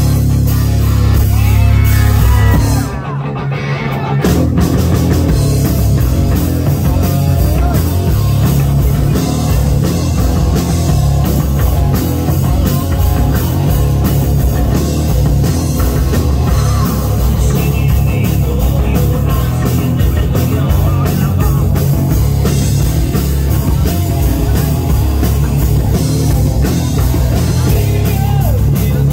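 Live rock band playing loud through a club PA, electric guitar and drum kit driving a steady beat, with a brief dip about three seconds in before the full band comes back in.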